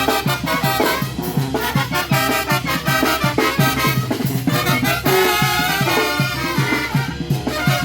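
Mexican brass band (banda de viento) playing live: brass chords over a steady beat of bass notes and drums.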